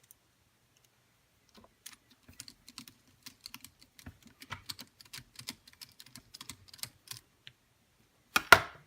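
Quick small clicks and taps of hands working small plastic and metal parts of an RC crawler's wheel hub, brake rotor and wheel, with one louder knock near the end.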